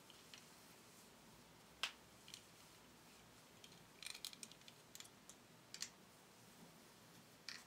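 Near silence broken by a few faint, sharp clicks and rustles as hair is gathered and pinned up with a hair clip: one click about two seconds in, a quick cluster around the middle, and a couple more near the end.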